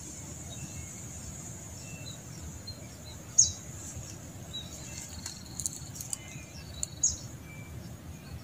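Outdoor ambience of a steady high insect trill, with two short falling bird chirps standing out, one about three and a half seconds in and another near seven seconds, and a few faint ticks between them.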